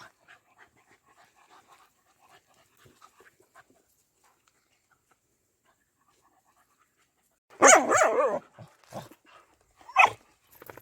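Dog barking: a loud burst of barks about three quarters of the way in, then two shorter barks, after a few seconds of only faint scattered sounds.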